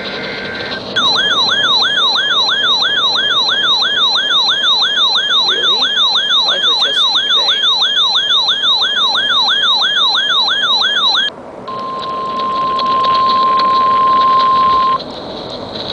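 Weather alert radio sounding its siren alarm: a fast warbling wail that sweeps about two and a half times a second for about ten seconds. It then gives way to a steady single-pitch NOAA Weather Radio warning alarm tone, at 1050 Hz, lasting about three seconds.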